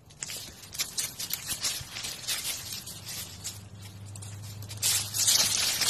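Crackling and rustling of stiff plant leaves and dry leaf litter as a young alpaca nibbles at and brushes against a spiky plant. The crackles grow denser and louder near the end, with a faint low hum under them in the middle.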